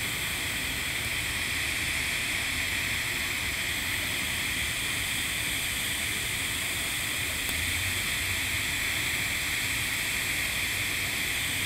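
TIG welding arc on carbon steel pipe, a steady hiss with no breaks, during the root pass as filler wire is dipped into the puddle to tie in at a tack.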